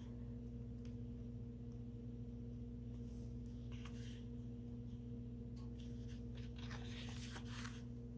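Pages of a paperback book being turned by hand: two bouts of soft paper rustling, the second longer, over a steady low hum.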